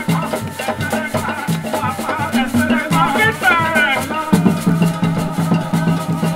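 Live Ben skin dance music: hand drums and shakers playing a fast, steady beat, with voices rising over it a little past the middle.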